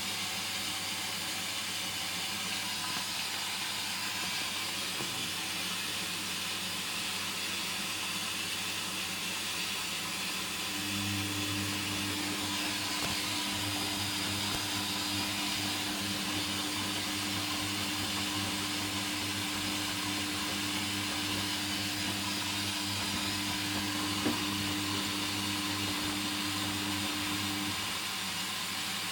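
Hoover Dynamic washing machine in its second rinse: a steady rush of water, joined about a third of the way in by a low machine hum that stops shortly before the end.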